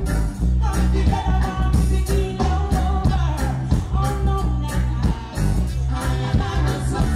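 Female reggae singer singing live into a microphone over a band with heavy bass and a steady beat, played loud through a concert sound system.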